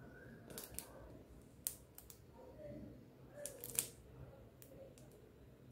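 Light sharp clicks, about eight, often in pairs, from handling a plastic squeeze bottle of fabric glue while dotting glue onto cloth stretched in an embroidery hoop.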